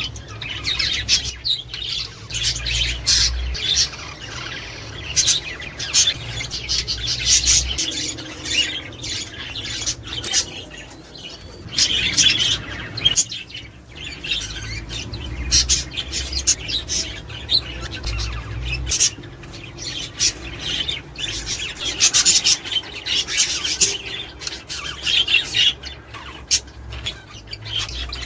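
A flock of budgerigars chattering and warbling continuously, with dense overlapping chirps and short squawks, over a low steady hum. This is the flock chatter used to stimulate budgies to pair and breed.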